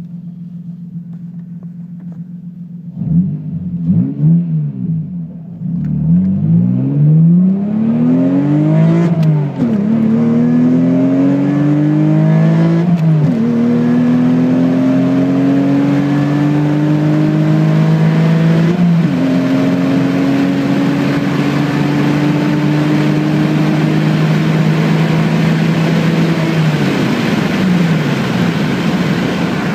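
Toyota Supra MKIV's naturally aspirated 2JZ-GE straight-six, heard from inside the cabin: idling, revved twice, then accelerating hard through the gears. The engine note climbs steadily in each gear and drops sharply at three gear changes, with a brief dip and recovery near the end.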